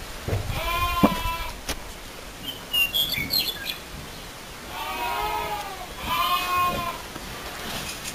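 Goat kid bleating three times: one call near the start and two in close succession past the middle, with a few short high chirps in between.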